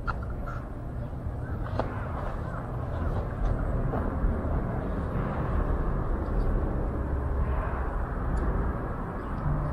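Steady, rumbling background noise picked up while on the move, heaviest in the bass, with a few sharp clicks near the start.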